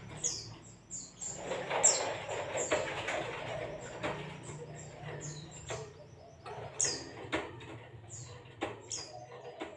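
Zosterops white-eye singing: a string of short, high notes sweeping downward. A stretch of rustling noise comes with the song from about a second and a half to four and a half seconds in, over a faint steady low hum.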